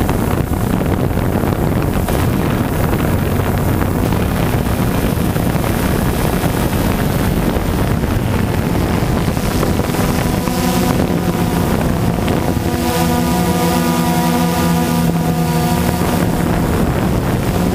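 Multirotor camera drone's electric motors and propellers buzzing, with wind rushing over the microphone. From about ten seconds in, a steady whine of several even tones from the motors stands out.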